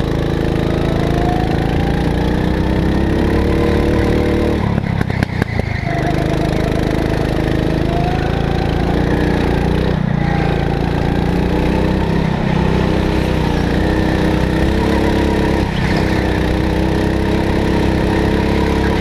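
Go-kart engine running close to the camera, its pitch rising and falling as the throttle opens on the straights and eases off for the corners, with several brief drops.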